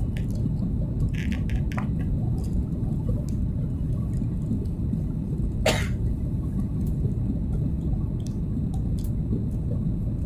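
Steady low rumble of a Boeing 737 MAX 8 airliner's cabin during descent, from engine and airflow noise, with a few faint clicks near the start and one short sharp noise a little past halfway.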